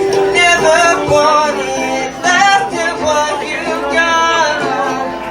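A solo voice singing a song live over held chords from an acoustic string instrument, the sung line gliding up and down in pitch.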